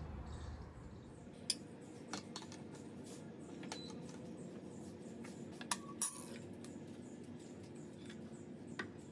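A handful of sharp, light clicks and clinks of tableware over a faint steady background hum. The hum is louder at first and drops about a second in; the loudest clinks come as a quick pair about six seconds in.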